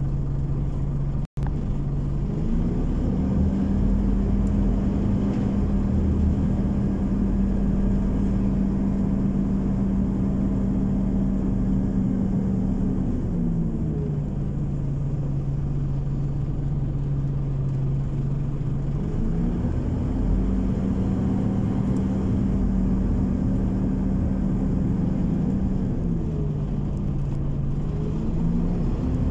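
A Scania OmniCity city bus's engine running as the bus drives, heard from inside the cabin. It is a steady hum whose pitch steps up, holds for several seconds, then drops back, twice over, and climbs again near the end.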